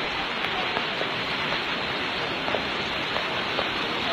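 Fast-flowing floodwater rushing down a street, a steady, even rush of water.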